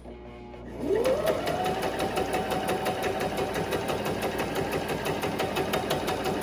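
Brother XM3700 electric sewing machine stitching a test seam: the motor spins up about a second in and runs at a steady speed with the rapid, even clatter of the needle.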